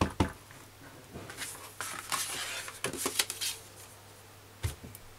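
Handling of a clear acrylic stamp block and a cardstock box on a craft mat. It starts with a couple of light clicks, then a stretch of paper rustling with small ticks. Near the end comes a single dull thump as the block is pressed down onto the card.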